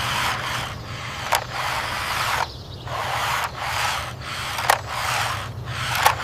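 A toy vehicle handled and pushed back and forth across a surface: repeated scraping strokes, roughly one a second, with a few sharp clicks.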